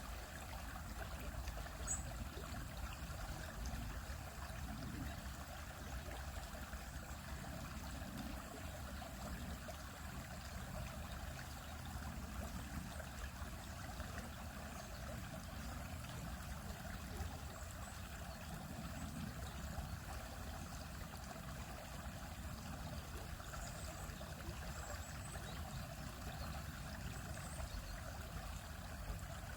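Stream flowing across rocks, a steady rushing and trickling of water.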